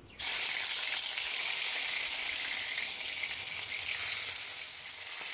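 Pieces of rohu fish sizzling in hot oil in a kadai as they are laid in. The sizzle starts suddenly just after the start, holds steady and eases slightly near the end.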